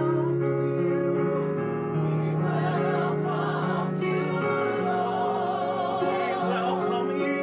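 Gospel choir singing sustained harmonies with vibrato, the chords changing every second or so.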